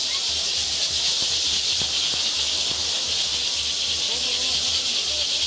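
Massed chinchín rattles shaken by many Parachico dancers at once, making a steady, dense hiss, with faint crowd voices underneath.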